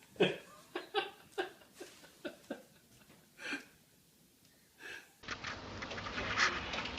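A series of short, sharp breathy bursts, about nine in five seconds, irregularly spaced. About five seconds in they give way to a steady noisy background.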